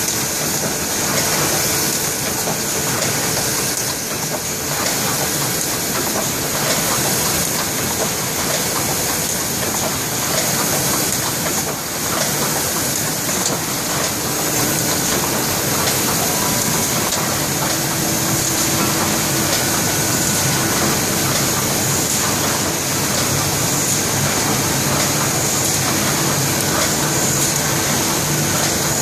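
Waite & Saville steel-die engraving press running steadily, its sheet feeder and stamping mechanism making a continuous, dense mechanical noise.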